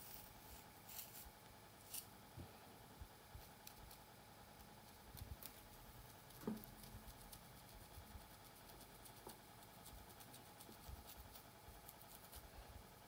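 Faint scratching and light ticking of long fingernails picking through hair along the scalp, with one short falling squeak about halfway through.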